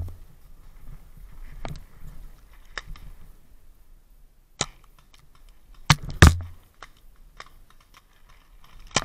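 Paintball markers firing: scattered sharp pops, mostly faint, with a loud close pair about six seconds in and another shot near the end.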